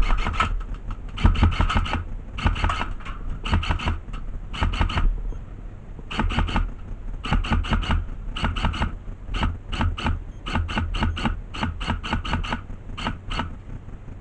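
Airsoft gun firing in short rapid bursts, about a dozen bursts of several shots each, with brief gaps between them. A low wind rumble runs underneath.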